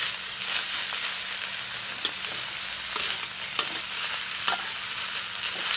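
Young paku remudang fern shoots stir-frying in hot oil with shrimp paste, shallots and garlic: a steady sizzle, broken by the occasional scrape and tap of the stirring utensil against the pan.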